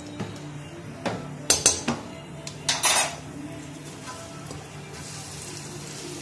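A spatula scraping and knocking against a wok while chopped garlic is stirred in hot oil, with a few sharp clatters between about one and three seconds in, then a faint steady sizzle of the garlic frying.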